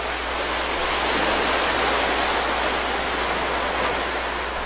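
Sea waves washing on the shore: a steady rushing that swells about a second in and eases again near the end.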